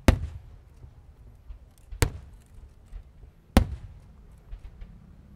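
Aerial fireworks shells bursting: three loud bangs, about a second and a half to two seconds apart, with smaller cracks between them.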